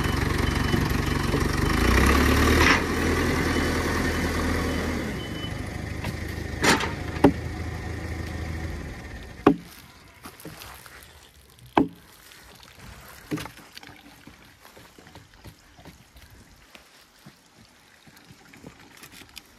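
An engine running steadily, which fades out about nine seconds in, with several sharp knocks a second or more apart.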